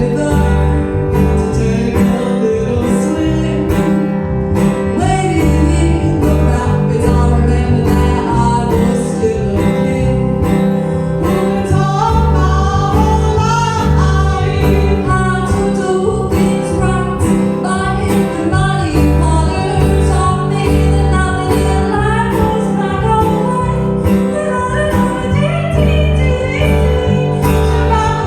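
Acoustic guitar song with a woman singing.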